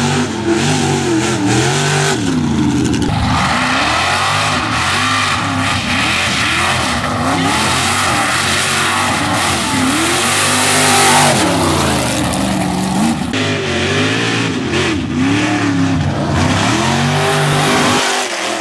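Mud truck engine revving hard, its pitch swinging up and down every second or two as the throttle is worked through the mud course, with tyres spinning and throwing mud. A louder rush of hiss comes about ten seconds in.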